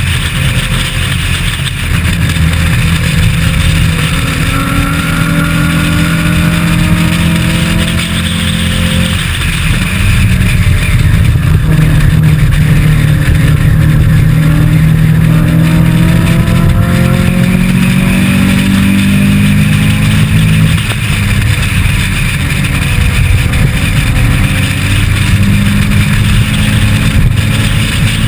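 Historic racing saloon car's engine at racing speed, from a bonnet-mounted onboard camera, revving up through the gears. The pitch climbs and drops with gear changes and lifting for corners, about nine seconds in and again about twenty-one seconds in, over wind and road noise.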